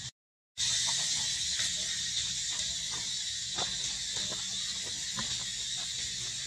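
Forest ambience: a steady high-pitched insect drone with faint scattered clicks and rustles. The sound drops out completely for about half a second at the very start.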